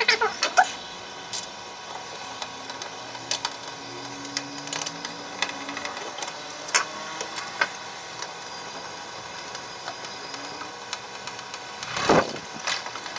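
Scattered light clicks and knocks of plastic pressure-washer parts being handled and pressed into place, with a louder scrape-and-knock about twelve seconds in.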